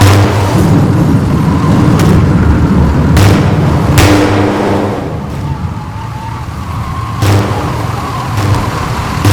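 A vehicle running on the road with a steady low engine and road rumble. A handful of sharp knocks or bangs cut across it at uneven intervals, and the rumble eases for a couple of seconds about two-thirds of the way through.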